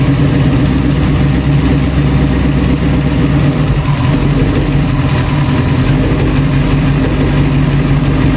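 1966 Ford Bronco engine idling steadily on its first run after a full restoration.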